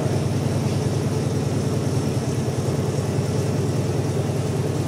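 Multi-head Richpeace computerised embroidery machine running, its needle heads stitching quilted saddle pads in a steady, fast mechanical rhythm.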